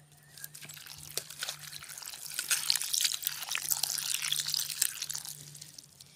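Water pouring into a steel bowl of diced raw potatoes while a hand swishes the pieces to rinse them: splashing with small clicks of potato against the bowl. It builds over the first two seconds and fades near the end.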